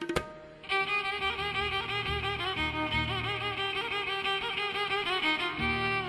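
Indian classical fusion music: a single drum stroke at the start, then, about a second in, a sustained violin melody with wavering, sliding pitch over a low steady drone.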